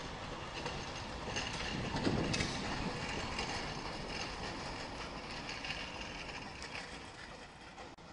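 Street tram passing close by, rolling over the rails, loudest about two seconds in, with a faint high ring from the wheels at times.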